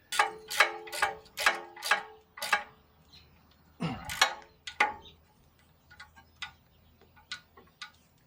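Hand tools working the Suzuki Sidekick's rear shock-absorber bolts: a run of about six sharp metallic clicks, roughly two a second, each with a short ring. About four seconds in comes a brief squeak falling in pitch, then fainter scattered clicks.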